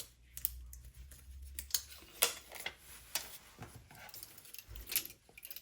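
Irregular light clicks and taps from handling small phone parts and the sheet of replacement adhesive, about half a dozen sharp ticks spread over several seconds.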